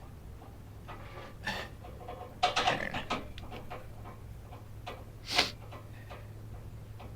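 Handling noise: a few knocks and rattles, clustered about two and a half seconds in, a short hissing burst a little after five seconds, and a steady low hum underneath.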